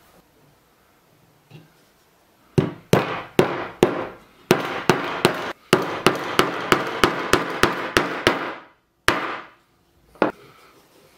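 Hammer driving a nail into a wooden block through masking tape: a run of quick, sharp blows at about three a second starting about two and a half seconds in, then two single blows near the end.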